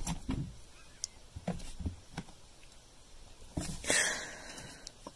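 A cat attacking its reflection in a mirror: a sharp knock against the mirror at the start, a few soft thumps of paws, and a short noisy burst about four seconds in.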